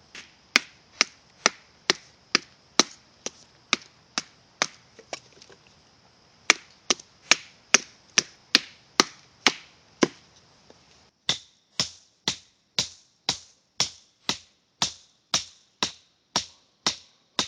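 Wooden baton striking the spine of an Opinel No. 10 carbon steel folding knife to split dry red maple: sharp knocks about two a second, with a pause of about a second near the middle. From about eleven seconds in, the knocks change in tone and come more evenly.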